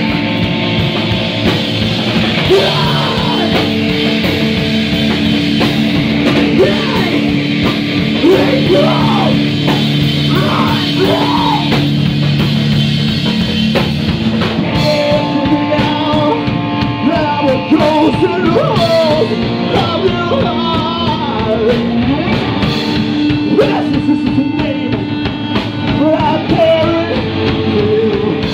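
Live rock band playing loudly: electric guitars and a drum kit, with a singer's voice over the top.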